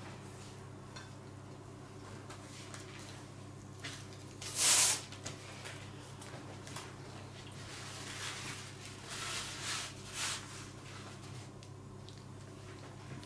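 Rustling and handling of thin fresh pasta sheets and their paper, one louder rustle about five seconds in and softer ones a few seconds later, as a sheet is lifted off the stack and laid on a plastic cutting board. A low steady hum runs underneath.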